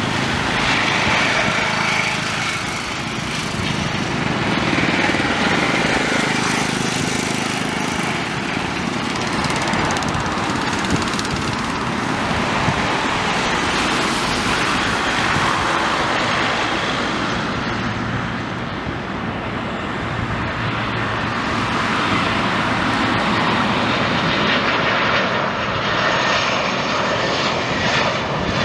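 Airbus A320-214 on final approach, its CFM56 jet engines heard as a steady rushing noise that stays even throughout.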